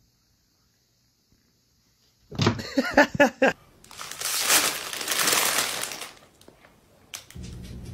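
A plastic food bag crinkling and rustling for about two seconds, shaken to call a cat to its food. Just before it comes a short burst of a calling voice.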